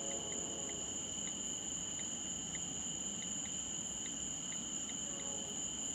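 Night insects (crickets) trilling steadily at two high pitches, with short chirps about every half second. Beneath them is a faint low rumble from a distant freight train.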